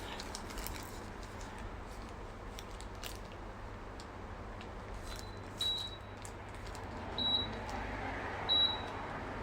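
Air conditioner's indoor unit beeping four times, short high single-tone beeps about a second and a half apart, the way such a unit acknowledges presses on its remote. There are a few faint clicks before the beeps and a low steady background hum.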